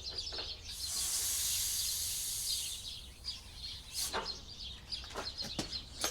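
Air hissing for about two seconds from the air-shock fill valve as a pressure gauge is pressed on to read the pressure, followed by a few sharp clicks. Birds chirp steadily throughout.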